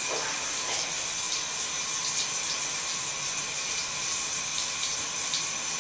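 Bathtub tap running steadily into the tub, an even hiss of water, with a few faint splashes.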